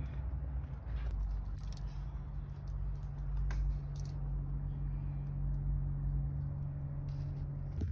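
A low steady hum, with a few faint clicks and rustles over it.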